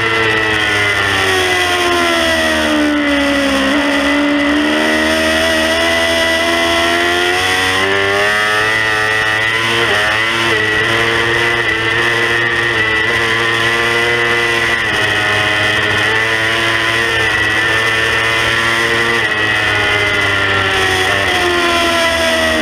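Stock 2018 Yamaha R6's 600 cc inline-four engine at racing revs. The pitch falls over the first few seconds, then climbs and is held through a long corner, with a few sudden steps in pitch. A steady high whine and rushing wind on the onboard microphone sit over the engine.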